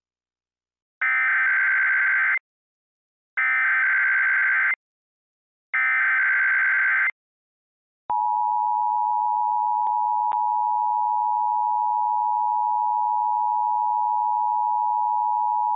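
Emergency Alert System tones: three short warbling bursts of SAME header data, each about a second and a half with short gaps between. About eight seconds in comes the steady two-tone EAS attention signal, which holds. Together they mark the start of an emergency alert broadcast.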